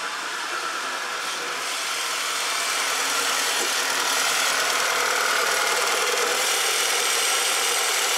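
A 2.0-litre turbocharged four-cylinder engine idling roughly. It is misfiring on cylinders 1 and 3 because rocker arms have fallen off in the valvetrain. The sound grows louder over the first few seconds, then holds steady.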